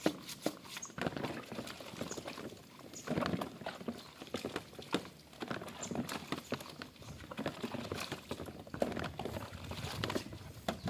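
Hand-scrubbing of a wet plastic vacuum cleaner part with a piece of sacking, a scratchy rubbing with irregular clicks and knocks of plastic and some water sounds.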